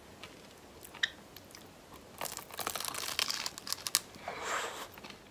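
Crisp pastry crust of a McDonald's strawberry pie crunching in a run of sharp crackles as it is bitten and chewed, with a short rustle of its paper sleeve near the end.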